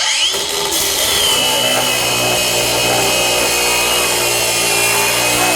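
DeWalt 9-inch cordless angle grinder starting up and cutting 3/4-inch steel plate with a cut-off disc. Its whine climbs as it spins up, drops a little as the disc bites into the steel, then holds steady under load.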